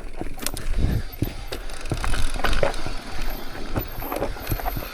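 Mountain bike riding over rough, rocky ground: irregular clicks, knocks and rattles from the bike over a constant low rumble.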